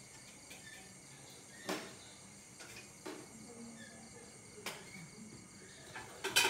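Faint insects chirping over a quiet background, with a few sharp clicks about every second and a half; the loudest comes near the end.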